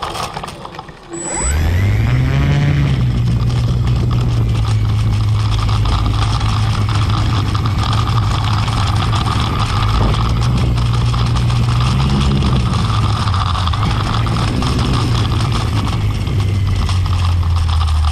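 Brushless electric motor and propeller of an E-flite Clipped Wing Cub RC plane starting up suddenly about a second in, its pitch rising briefly, then running steadily at low throttle with a low propeller hum and a thin high whine.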